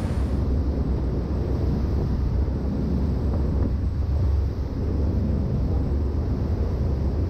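Riva 68 Diable motor yacht running at top speed: a steady low rumble of its engines mixed with wind rushing over the microphone.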